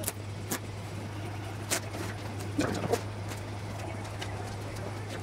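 Masking tape being pulled off its roll and pressed down by hand, giving scattered short sharp ticks and crackles over a steady low hum.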